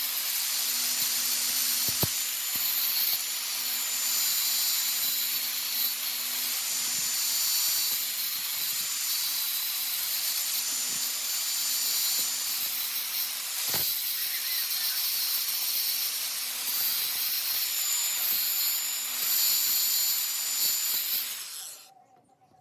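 Electric grinder running continuously, grinding a groove into the metal handle, with a steady hum under a high hiss and a couple of brief knocks; it cuts off shortly before the end.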